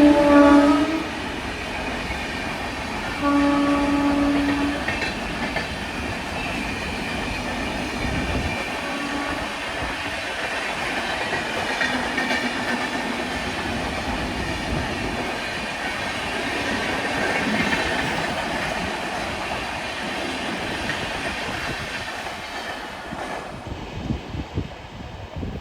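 Indian train passing on the line: two horn blasts, one right at the start and a longer one about three seconds in, then the steady rumble and clatter of the train's wheels on the rails as it goes by, dropping away near the end.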